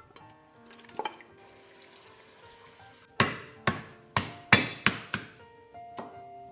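Background music, with a quick run of about seven sharp knocks a little past the middle.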